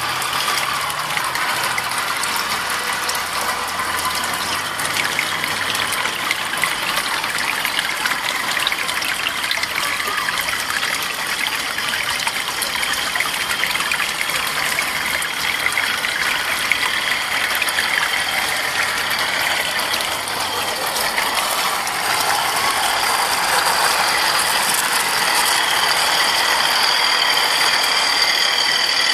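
Model train running on garden railway track: rapid clicking of its wheels over the rails with the whine of its motor and gears. The whine grows louder near the end as the coaches pass close by.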